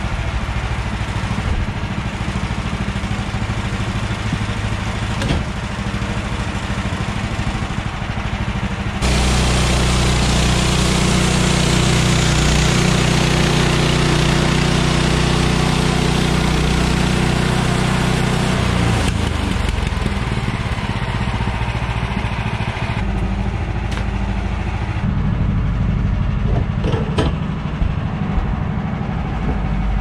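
Woodland Mills portable bandsaw mill's gas engine running steadily. About nine seconds in it gets louder and fuller for around ten seconds as the band blade saws through a red pine log, then drops back. A few sharp wooden knocks come near the end.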